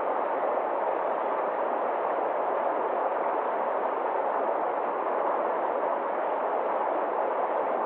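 Forest stream rushing over small cascades between rocks: a steady, unbroken rush of water.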